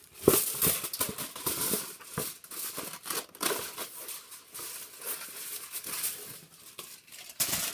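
Aluminium foil being handled and crinkled: a dense, irregular run of crackles and rustles, with a sharp crackle just after the start.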